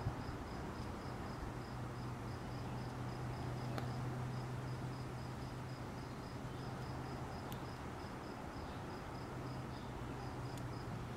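A cricket chirping steadily, about three short chirps a second, over a low steady hum. Two faint clicks sound about four and seven and a half seconds in.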